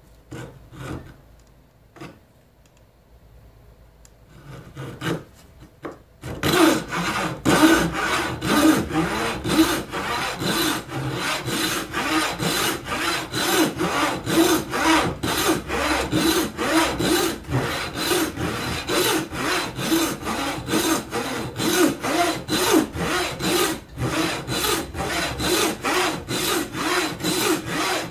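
Thin blade of a human-powered, wooden-framed saw cutting through a wooden workpiece in regular rasping strokes, about two a second. The sawing starts about six seconds in, after a few light knocks.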